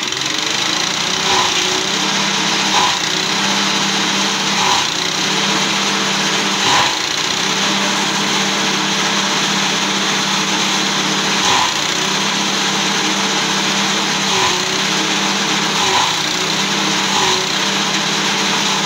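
Small petrol engine driving a chaff cutter runs steadily. Every few seconds a bundle of green stalks is fed in, and the engine briefly labours as the blades chop through it.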